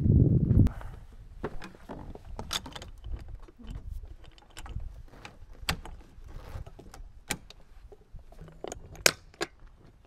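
Irregular metallic clicks and clanks of truck camper latches and hardware being worked while packing up. A low rumble fills the first second.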